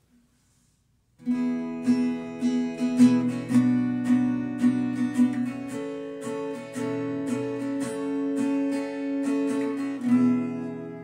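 Acoustic guitar being strummed, starting about a second in with repeated sharp chord strokes; a last chord near the end is left ringing and fades.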